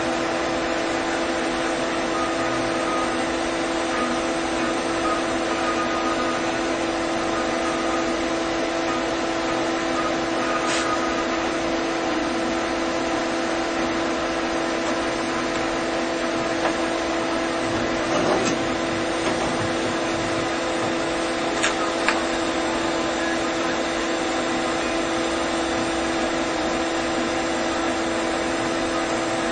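A steady hum with a few fixed tones over an even hiss, like a running machine or electrical equipment, with a few faint clicks around the middle.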